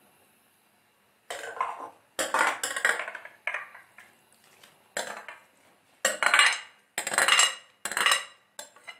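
A metal spoon scraping and knocking boiled rice out of a glass bowl into a steel pot of milk: a run of about eight scrapes and clinks, starting about a second in.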